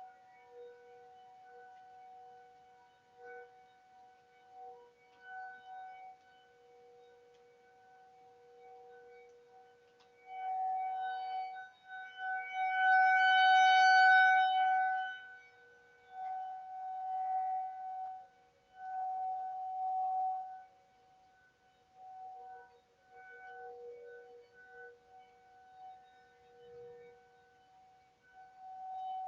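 Outdoor tornado warning sirens, ASC T-128s in the distance and a nearer, higher-pitched Federal Signal 2001-DC, sounding a steady tone heard through a doorbell camera's microphone. The sound swells and fades, loudest about halfway through, then in a few shorter swells.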